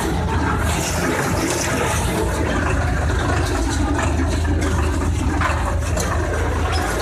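Tractor engine running steadily under load, heard from inside the cab, as it pulls a small square baler picking up hay in second gear, the baler's machinery adding a dense mechanical clatter.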